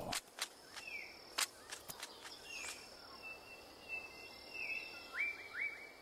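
Forest ambience: a steady high insect hum under scattered short, falling bird chirps and a few sharp clicks. Near the end come three quick rising notes in a row.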